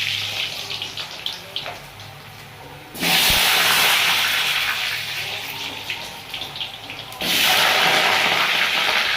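Potatoes sizzling in hot oil in a kadai. The sizzle surges loud about three seconds in and again about seven seconds in as more potatoes go into the oil, dying down between.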